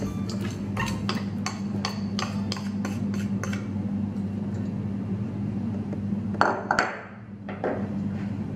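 Silicone spatula tapping and scraping against a small ceramic bowl, about a dozen quick clicks in the first three seconds, knocking brown sugar into a steel mixing bowl. A single louder knock about six and a half seconds in, over a steady low hum.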